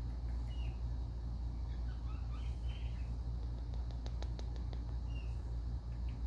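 Indian ringneck parrot giving a few soft, short chirps, with a quick run of light clicks about four seconds in, over a steady low hum.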